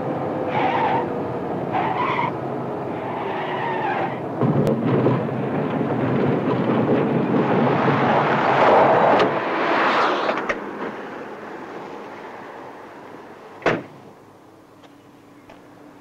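Car driving fast, then braking and skidding off the road onto the dirt shoulder, tyres sliding as it comes to a stop. A car door slams shut once near the end.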